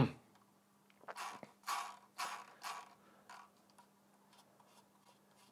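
The main scroll wheel of a Logitech MX Master mouse flicked round by hand several times. It gives about five faint, short spinning sounds roughly half a second apart, over a faint steady low hum.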